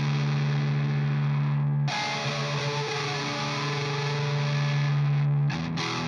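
Distorted electric guitar, a Telecaster, played through an Ibanez FLMINI analog flanger pedal. Chords are held and left to ring, then restruck about two seconds in and again near the end, with the flanger's sweep moving through them as its Speed and Regeneration knobs are turned.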